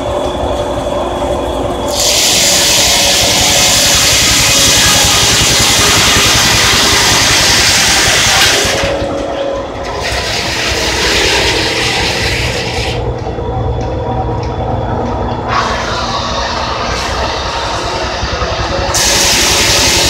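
Steam-powered sawmill machinery running: flat belts and pulleys turning with a steady low rumble. Loud steam hissing comes in several long spells over it.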